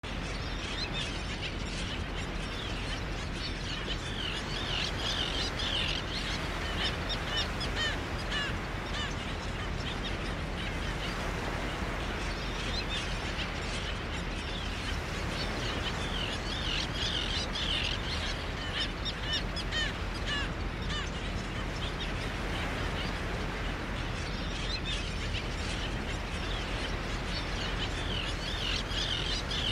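Small birds chirping and twittering over a steady background hiss. The chirping swells into busier bursts about every twelve seconds.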